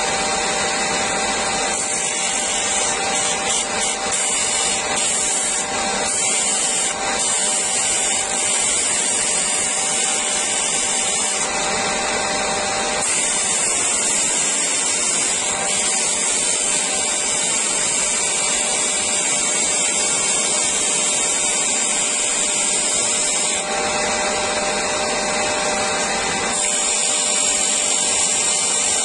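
Parkside PBTS 370 B2 bench belt and disc sander, with a 370 W induction motor, running while a wood block is pushed hard against its sanding disc. The motor keeps turning without stalling under the heavy pressure. A high sanding hiss over the steady motor sound swells and eases several times as the pressure changes.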